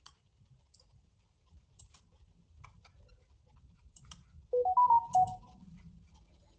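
A short electronic notification chime of a few stepped notes, rising then falling, lasting about a second and starting about four and a half seconds in. Faint scattered clicks are heard around it.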